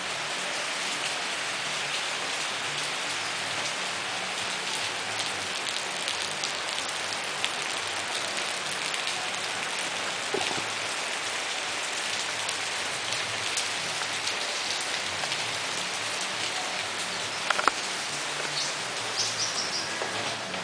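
Heavy rain falling steadily: a dense, even hiss with many small drop hits. A single sharp knock about three-quarters of the way through.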